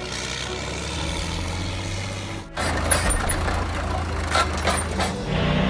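Crawler dozer diesel engines running in two short clips, a steady low drone that cuts off suddenly about two and a half seconds in and gives way to a noisier engine sound with scattered knocks.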